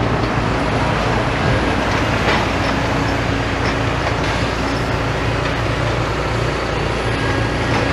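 Steady low rumble of heavy diesel engines and road traffic, with a few faint knocks.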